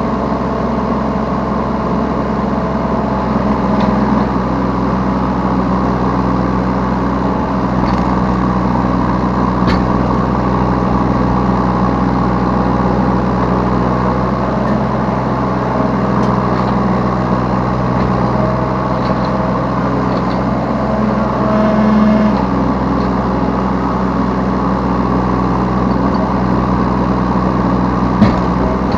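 Yanmar B3 Sigma 3-tonne mini excavator's diesel engine running steadily while it works. The level swells briefly about three quarters of the way through, and there is a sharp knock near the end.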